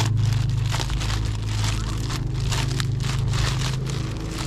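Crinkling and rustling of plastic packaging being handled and opened, in a quick run of short rustles, over a steady low hum.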